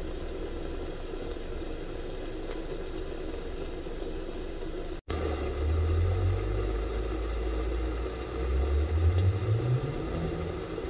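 Steady hiss of a Trangia spirit burner under a covered pot with steam escaping round the lid. After a cut about halfway, a low rumble joins it and rises in pitch near the end.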